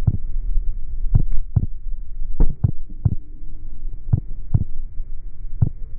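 Heartbeat sound effect: about ten short, low thumps, several in close pairs, over a dull hum with all the high end cut off, so it sounds muffled.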